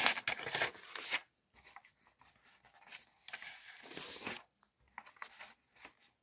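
Thin magazine pages turned by hand: two rustling page turns, one at the start and one about three and a half seconds in, with light paper handling between.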